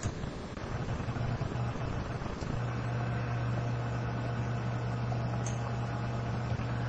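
Steady low hum over faint background hiss, growing steadier about two and a half seconds in, with two faint ticks.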